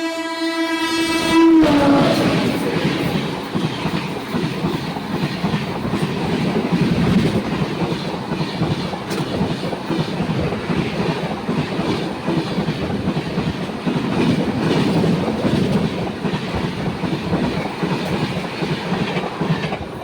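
WAP-7 electric locomotive's horn sounding one long blast that drops in pitch as the engine passes about a second and a half in, then the express train's coaches running past at high speed, wheels clattering over the rail joints.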